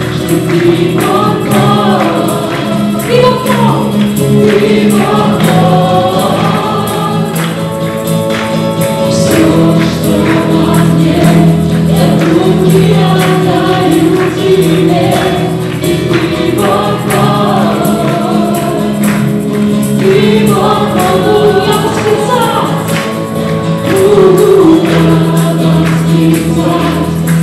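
Live Christian worship song: a group of singers sings together, backed by acoustic guitar, bass guitar and a Roland keyboard, with a steady beat.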